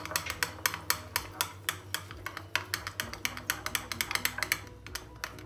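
A metal spoon stirring a thick mayonnaise and chili garlic sauce in a small ceramic bowl, clicking against the bowl about five times a second.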